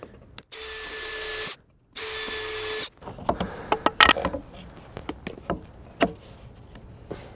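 Cordless drill running in two steady bursts of about a second each, with a whirring motor tone, working into plywood. After that come scattered sharp knocks and clicks of wood being handled.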